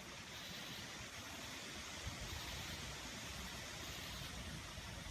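Steady hiss of a thunderstorm outdoors, with a low rumble that grows a little stronger about two seconds in.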